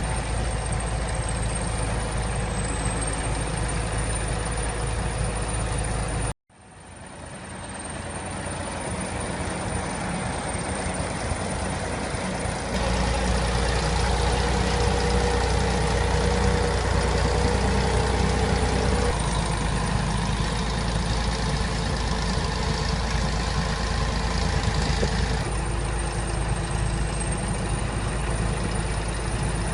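Heavy vehicle engines running steadily, as a string of short clips cut together. About six seconds in the sound cuts out completely for a moment, then fades back in.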